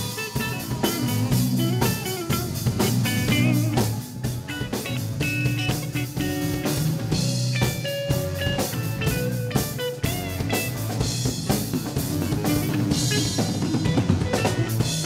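Live band playing: a guitar lead with bent notes over drum kit and bass, a guitar feature.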